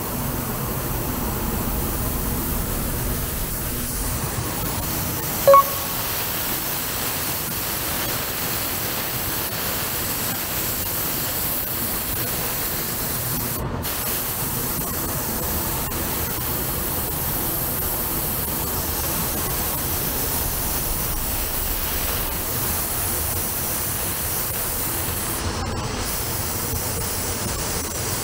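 Steady hiss of compressed air from a pneumatic body-shop tool, at a constant level, with one short, loud beep about five and a half seconds in.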